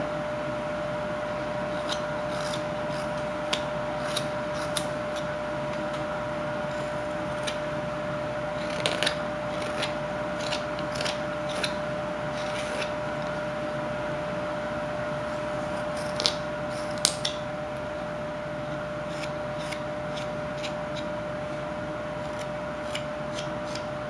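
Carving knife slicing shavings off a block of wood in a series of short, crisp cuts and scrapes, spaced unevenly, over a steady background hum.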